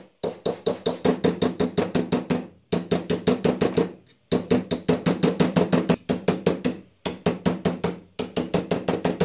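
A hammer rapidly tapping a steel punch to drive the wrist pin out of a Husqvarna 440 chainsaw piston, about six ringing metallic taps a second in four or five runs with short pauses between. The wrist pin is very tight.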